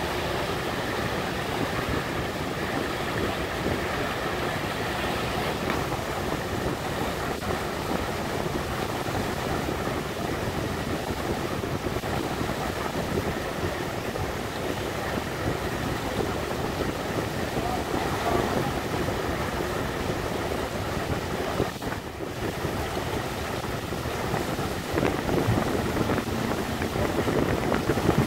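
MS Sunnhordland under way: a steady din of the ship's running with water rushing past and wind on the microphone, a faint steady hum above it. It grows somewhat louder near the end.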